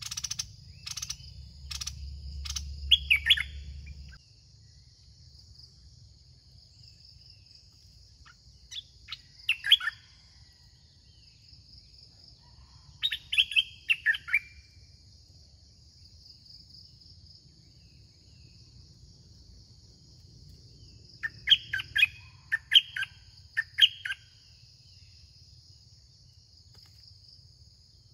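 A songbird calling in short bursts of a few quick, clear whistled notes, four bursts spread through the stretch with quiet gaps between. A steady high insect drone runs underneath throughout.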